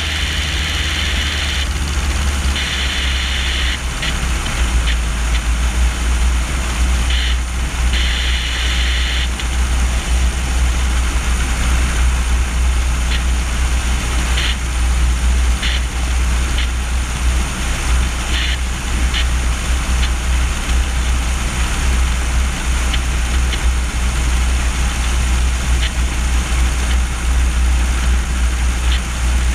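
Wind rushing and buffeting over a camera mounted on the main landing gear of a Cessna 150E in flight, a loud steady rumble with the drone of the plane's four-cylinder engine and propeller beneath it. A few short hissing gusts come in the first several seconds.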